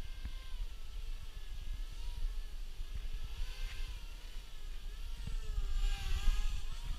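QAV250-clone racing quadcopter's brushless motors whining, the pitch rising and falling as the throttle changes, loudest about six seconds in, over a steady low rumble.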